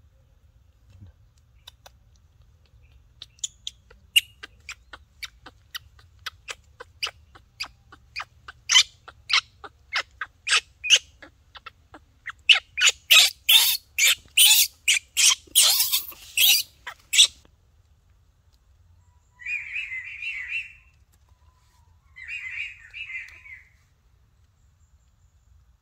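A quickening series of short, sharp, high chirps, growing louder and closer together, then stopping. Two harsher, buzzy calls follow a couple of seconds apart.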